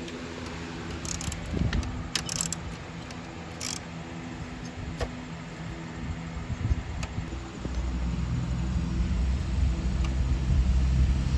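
Low, steady hum of a motor vehicle engine running nearby, with a few sharp clicks in the first few seconds. About eight seconds in, a deeper engine rumble comes up and grows louder.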